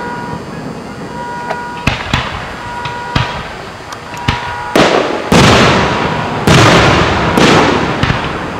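Aerial firework shells bursting: a few sharp cracks in the first half, then four heavy booms with long rolling echoes from about five seconds in.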